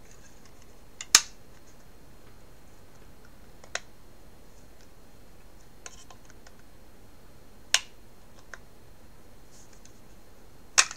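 Sharp plastic clicks from a black plastic Raspberry Pi case being worked in the hands: about five single clicks a few seconds apart, the loudest about a second in and another near the end.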